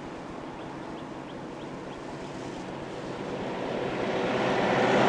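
Steady highway road noise that swells over the last two seconds, like a vehicle approaching and passing close by.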